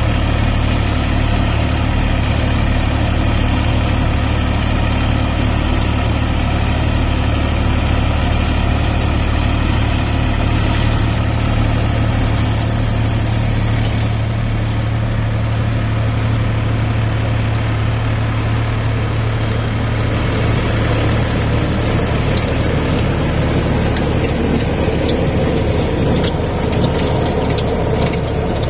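Massey Ferguson 254 Dynasmart tractor's diesel engine running steadily while pulling a plough through hard soil. The low engine drone holds an even pitch throughout.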